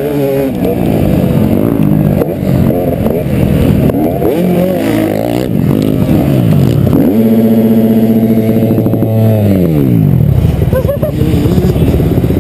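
KTM motocross bike engine revving hard and changing pitch as it is ridden. It then holds flat out at a single steady pitch at the rev limiter for about two seconds, then drops away in pitch.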